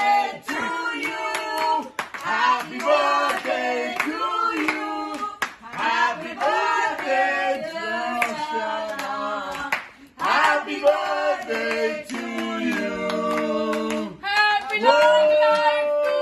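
People singing a song together, with hands clapping along.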